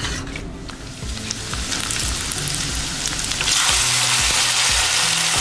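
Sambar being stirred in a steel pot, then poured into a pan of hot tempering oil with onions and curry leaves. The tempering sizzles, louder from about three and a half seconds in.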